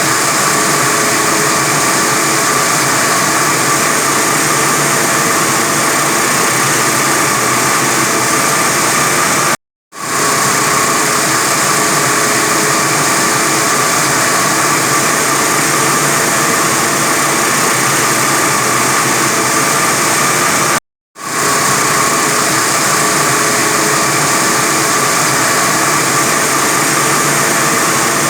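A 45 kW diamond wire saw running steadily while cutting concrete: a loud, even machine noise with a steady whine. It cuts out for a moment twice, about ten and twenty-one seconds in, and comes straight back.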